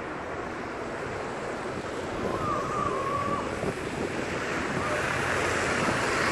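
Red double-decker bus approaching and passing on a wet road: a rush of engine and tyre noise that grows louder toward the end, with a brief high squeal about two and a half seconds in.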